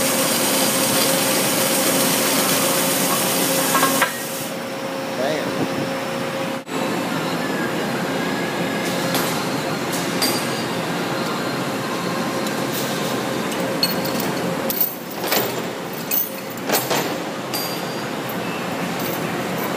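Industrial horizontal band saw running steadily as it cuts through railroad track. After about four seconds this gives way to steel-shop noise, with a few sharp metallic clanks of chain and steel a few seconds from the end as an overhead crane lowers the cut track pieces.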